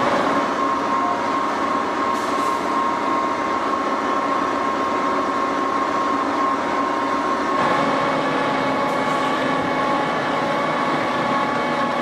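Massey Ferguson 8737 tractor's six-cylinder diesel running under load as it creeps forward while its push-off trailer unloads maize silage, with a steady whine over the engine.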